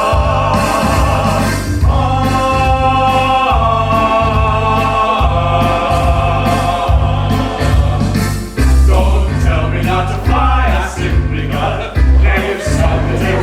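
Mixed choir singing with a pulsing low accompaniment: long held chords for the first five seconds or so, then quicker-moving lines.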